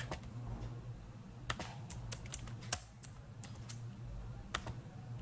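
Faint, irregular clicks of a computer keyboard and mouse, about a dozen taps spread unevenly, over a low steady hum.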